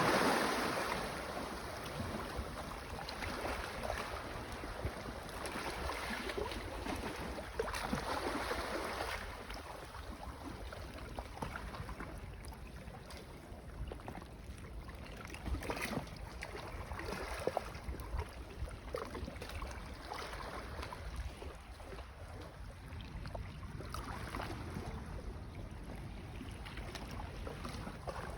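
Small waves lapping and splashing against the shore of a calm sea: a soft wash that swells and fades every few seconds, with now and then a short splash, over a low steady rumble.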